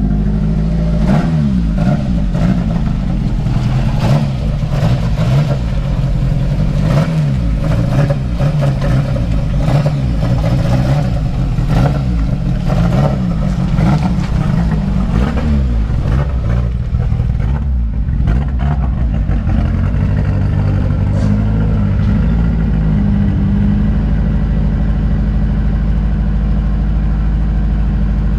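Nissan GA16DE four-cylinder engine of a B13 Sentra running after it has been blown, smoke coming from the exhaust. For the first half its speed wavers up and down about once a second, with sharp ticks about twice a second; then it settles into a steady idle.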